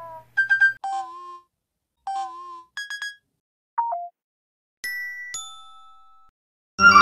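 Phone low-battery alert sounds played one after another: short electronic beep patterns of a few quick notes, repeated once, then a brief two-note falling blip and a single chime that rings and fades. Loud organ-like music starts just before the end.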